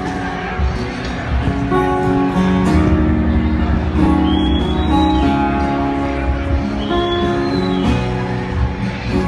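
Amplified acoustic guitar played live through a stage PA: a slow instrumental passage of picked, ringing notes with no singing.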